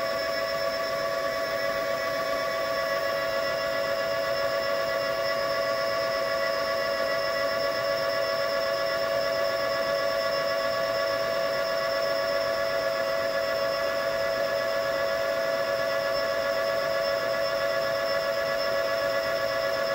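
Brushless motor spinning a Ford F-150 truck alternator through a pulley, running with a steady whine made of one strong tone and several higher overtones, while the alternator charges the battery.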